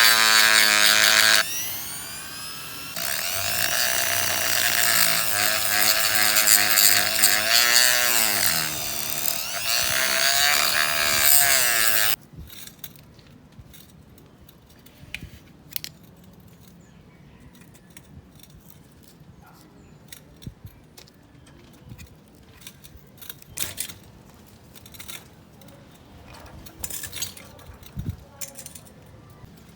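A small electric power tool running for about twelve seconds, its pitch rising and falling as speed and load change, then cutting off suddenly. Scattered light clicks and taps follow.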